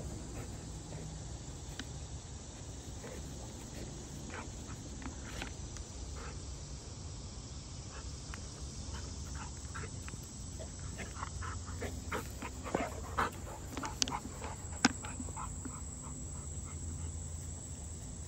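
Dog giving a series of short, sharp barks and yelps, bunched together about two-thirds of the way in, over a steady low rumble.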